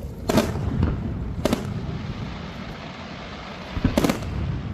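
Fireworks display: aerial shells going off in sharp bangs, one about a third of a second in, another at about a second and a half, and a quick cluster of several near the end, over a steady low rumble.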